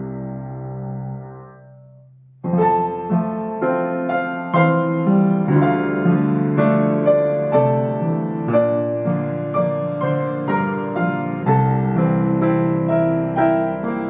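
Yamaha C1X baby grand piano being played: a held chord fades away, and after a short pause about two seconds in, a new passage begins with notes struck roughly twice a second.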